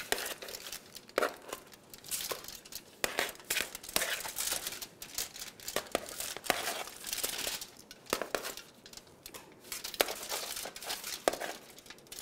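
Aluminium foil crinkling and rustling in an irregular run of crackles and clicks, as metal tongs scrape and tap against the foil-lined sheet pan while lifting roasted pepper pieces.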